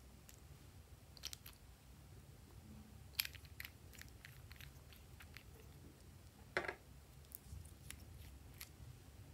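Faint, scattered plastic clicks and taps as fingers handle small plastic toy bottles and twist and pull off their caps, with a sharper click about three seconds in and a louder crack a little past six and a half seconds.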